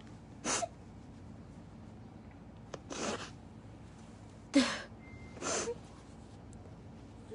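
A woman crying: four short, sharp sobbing breaths, the third the loudest with a brief catch of voice.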